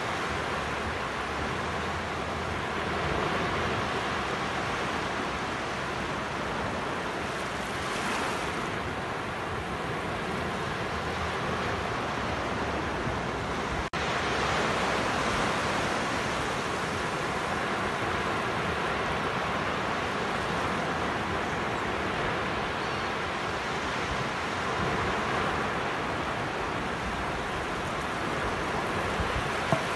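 Sea waves breaking and washing up a sandy beach: a steady rush of surf that swells gently in loudness, with a momentary dropout about halfway through.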